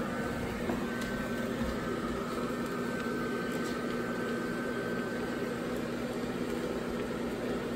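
Built-in blower fan of a Gemmy airblown yard inflatable running steadily with a hum, blowing air into the nylon figure as it inflates.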